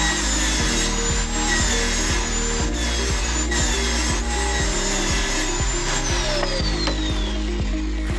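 A saw cutting through an MDF board, with background music playing.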